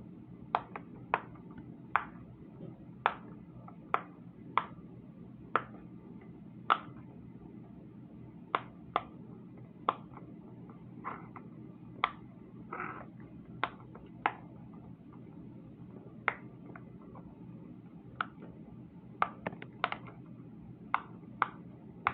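Silicone pop-it fidget toy bubbles being pressed in, each giving a sharp little pop, at an uneven pace of roughly one to two a second, over a low steady hum.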